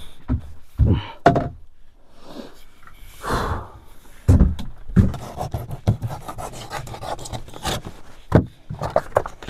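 Scattered knocks and thuds on wood in a small room, with a heavy breath about three seconds in.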